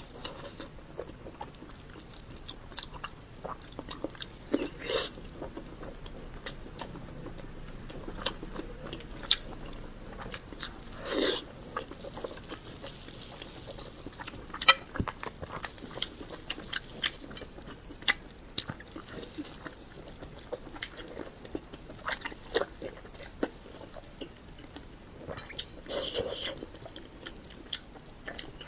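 Close-miked eating of pork belly: biting and chewing, heard as many short, irregular mouth clicks and smacks with a few louder bites.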